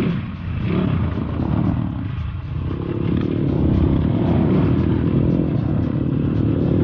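Off-road motorcycle engine running during a dirt ride, dropping briefly in level just after the start and then holding steady.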